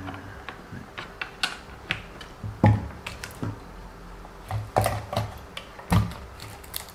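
Handling noise from a WLToys 144001 RC car and its suspension parts during a repair: irregular small clicks and light knocks, with three louder knocks spread through.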